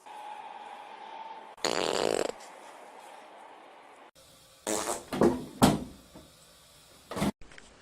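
A loud fart about one and a half seconds in, lasting under a second, followed by several short, sudden sounds a few seconds later and one more near the end.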